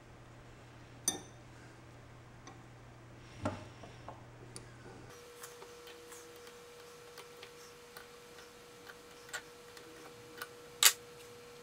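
Scattered metallic clicks and clinks of a combination wrench working a nut welded onto a snapped-off bolt, with the loudest sharp clink near the end.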